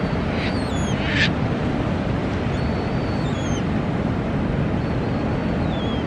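Surf washing steadily on the beach, with seabirds feeding overhead calling: two short harsh calls in the first second or so, and thin falling whistles several times through the rest.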